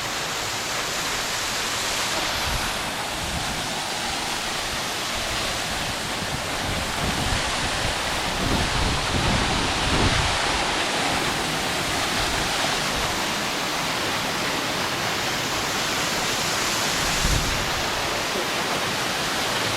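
Steady rush of a waterfall, a dense even roar of falling water, with a few low rumbles of wind on the microphone about halfway through and again near the end.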